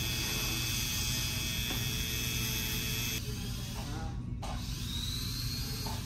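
Electric nail drill (e-file) running at a steady whine while filing fingernails. About three seconds in the sound cuts to a quieter steady hum, with faint voices and a short rising whine.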